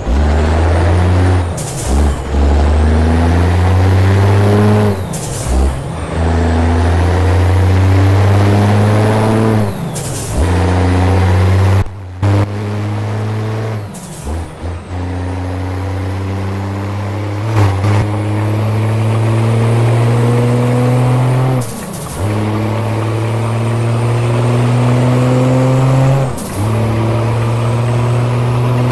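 Scania V8 diesel truck engine with a straight-through exhaust, pulling through the gears: the engine note climbs steadily for a few seconds, breaks off briefly at each shift, then climbs again, over and over.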